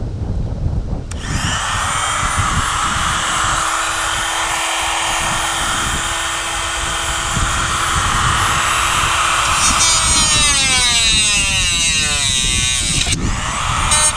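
A small electric power tool switches on about a second in and runs with a steady high whine. From about ten seconds its pitch falls and wavers, and it briefly dips near the end.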